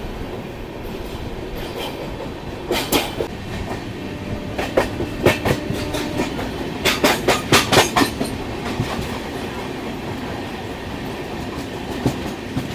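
Brahmaputra Mail passenger train running along the track: a steady rumble with groups of sharp wheel clicks over rail joints, thickest about seven to eight seconds in.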